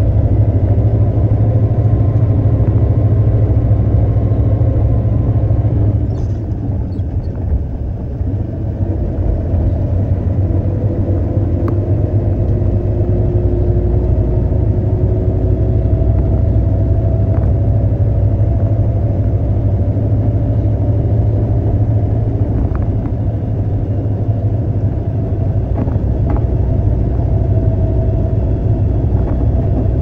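Concrete mixer truck running with a steady low rumble that eases off slightly about six seconds in, with a few faint ticks later on.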